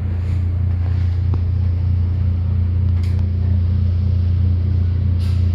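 A loud, steady low-pitched hum that holds unchanged throughout, with faint background noise above it.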